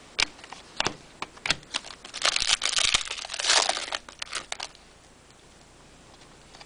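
A trading-card pack wrapper crinkling and tearing as a pack is opened, with scattered sharp clicks before and after the main burst of crinkling.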